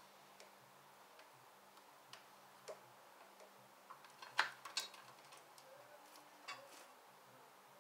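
Faint, irregular metallic clicks and taps of hand tools and parts being handled on a Harley-Davidson motorcycle, with a sharper pair of clicks about four and a half seconds in.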